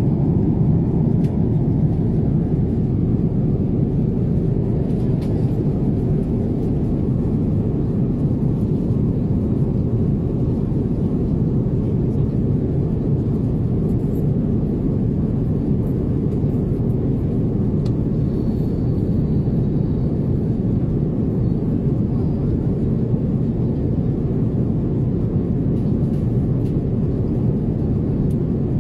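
Steady low rumble of a jet airliner's cabin in cruise flight: engine and airflow noise, even and unbroken.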